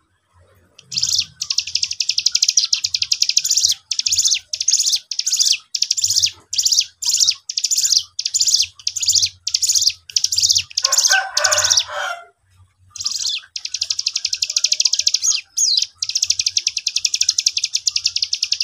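A caged cigun songbird singing in rapid, high trilling phrases, about two a second, with a short break about twelve seconds in before it starts again. A lower, rougher call is mixed in briefly just before the break.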